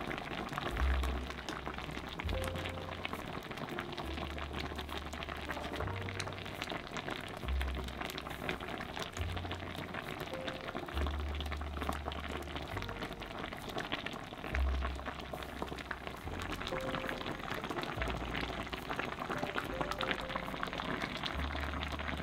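Thick, spicy red sauce of braised beltfish simmering in an uncovered ceramic pot, a steady fine bubbling and popping. Soft background music with a low bass line plays underneath.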